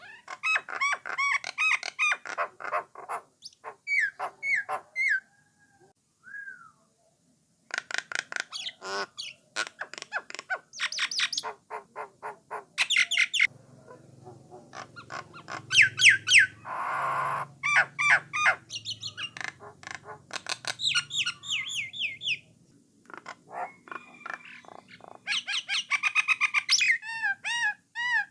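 Jalak Nias (jalak coklat) singing: bursts of rapid, repeated whistled and chattering notes broken by short pauses. A harsh rasping call comes in about two-thirds of the way through.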